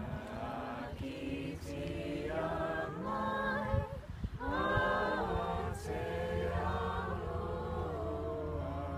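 A mixed group of young voices singing together unaccompanied, in held, slow phrases with short breaths between them.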